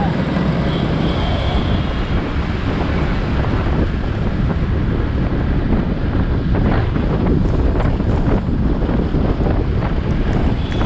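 Steady wind rumble on the microphone of a bike-mounted GoPro on a moving Suzuki Access 125 scooter, with the scooter's engine and road noise underneath.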